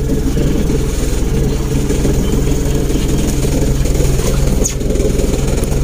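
Car engine running steadily, a low even hum heard from inside the cabin.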